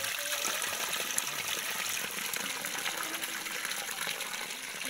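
Water from a small spring running out of a hole in an earthen bank and trickling down a narrow channel: a steady rushing hiss.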